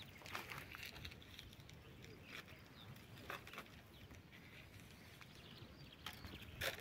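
Quiet outdoor ambience with a few faint rustles and soft crunches, and one louder crunch near the end.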